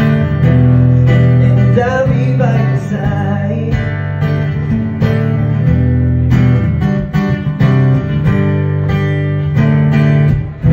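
Acoustic guitar strumming chords in an instrumental passage of a song, with a brief dip near the end before the strumming carries on.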